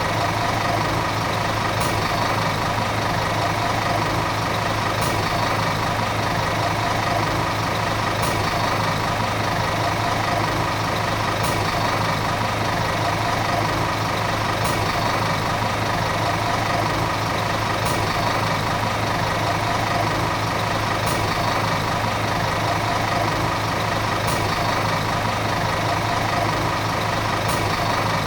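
Volvo city bus diesel engine running at a steady, even speed: a constant low drone with no revving. A faint tick comes about every three seconds.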